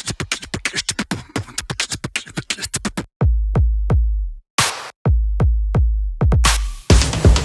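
Electronic music with a drum-machine beat. A fast run of sharp ticks gives way, about three seconds in, to deep bass hits with short breaks, and the full beat comes back near the end.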